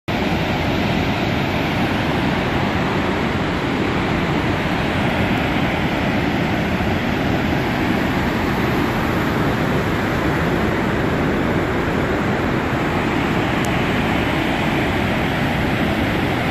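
Flood water pouring through a hydro dam's spillway into whitewater rapids: a loud, steady rushing noise with no let-up.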